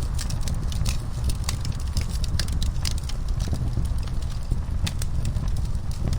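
Wood fire in a fireplace crackling, with many small irregular pops over a steady low rumble.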